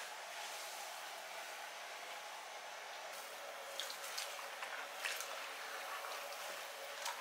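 Wet, soapy cloths squishing and sloshing in a plastic basin of water as gloved hands knead them, over a steady hiss. From about halfway through come several short, sharper squelches and splashes.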